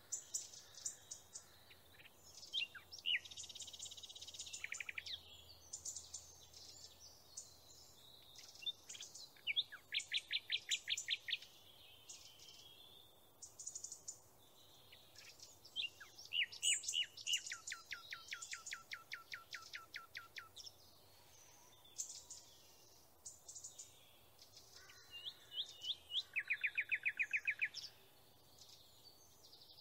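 Songbirds singing: a string of high chirps broken by several fast trills of repeated notes, the longest about ten seconds in, around seventeen to twenty seconds in, and near the end.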